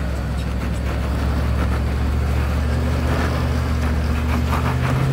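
Land Rover Discovery 2's engine running at low revs as the truck crawls up a rock ledge, its note rising near the end.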